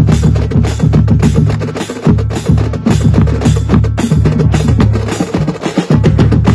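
Marching drumline playing together: rapid snare and tenor drum strokes over the low beat of bass drums, in a dense, fast rhythm.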